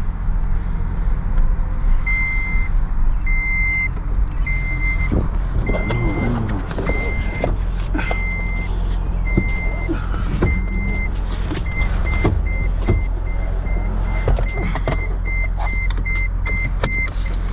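A Toyota Prius's warning chime beeping inside the cabin at one high pitch. It starts about two seconds in, repeats about once a second, then comes faster toward the end, over the steady low rumble of the car moving.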